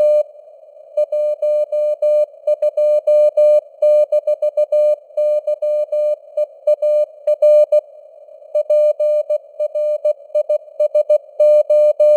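Morse code (CW) tone at 16 words per minute: a single steady beep keyed on and off in dots and dashes. It sits in a narrow band of simulated radio hiss, and its strength shifts slightly from character to character, simulating fading.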